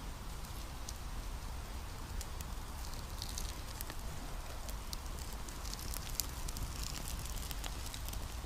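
Wood campfire crackling: scattered sharp pops and snaps over a steady hiss.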